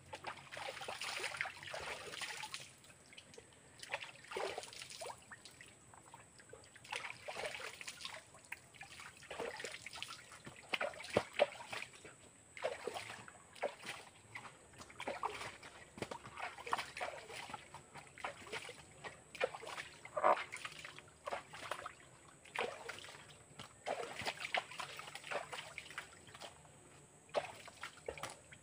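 Hands scooping and splashing water in a small rock-lined well, in irregular splashes with water trickling back between them.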